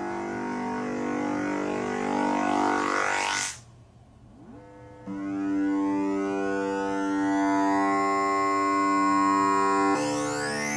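Synthesized oscilloscope-music signal: buzzing electronic tones in a held chord, the same waveform that is drawing shapes on the oscilloscope. About three and a half seconds in, the sound sweeps quickly up to a very high pitch and almost cuts out, then a steady chord comes back about a second and a half later, with a short rising-and-falling glide near the end.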